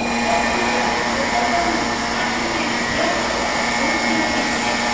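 Steady blower-like whir with a low, even hum from a Shinkansen train standing at the platform, its equipment running.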